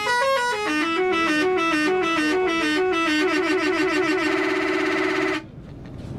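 Bus telolet horn playing a melody of stepped notes that climb and fall. About three seconds in it speeds into a fast trill, then cuts off suddenly near the end.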